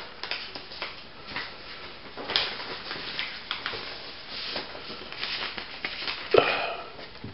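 Paper mail being opened and handled: crackly paper rustling with scattered small clicks, and a sharper knock about six seconds in.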